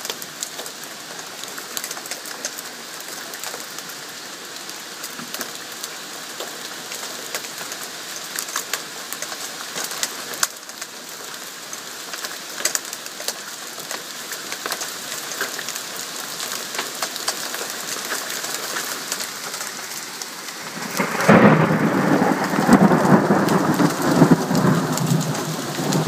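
Heavy rain with pea-size hail falling, a steady patter full of sharp ticks. About four-fifths of the way through, a loud crack of thunder breaks and rumbles on, the loudest sound here.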